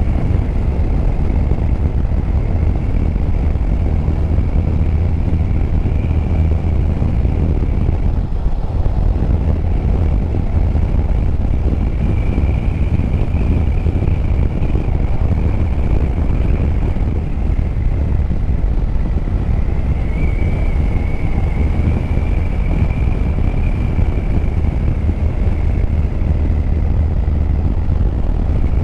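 Yamaha Tracer 9 GT's 890 cc three-cylinder engine running at steady road speed while riding, heard under heavy low wind rumble on the rider's microphone.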